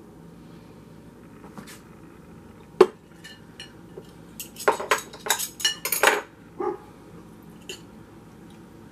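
Metal fork and knife clinking and scraping against a ceramic bowl, in a quick flurry of ringing clinks about halfway through. A single sharp knock comes shortly before it, the loudest sound.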